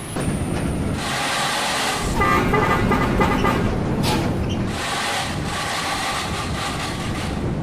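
Tour bus driving past with engine and road noise, its multi-tone telolet horn sounding once for about a second and a half near the middle.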